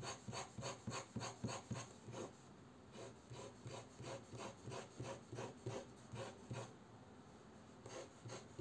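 Fountain pen nib scratching across paper in quick back-and-forth hatching strokes, about four a second, with a couple of short pauses. The pen is being put through a fast-stroke test for skipping while its ink is still starting to flow.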